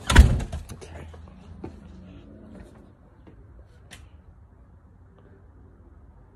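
A front door being pulled shut with a thud, followed by a few faint clicks.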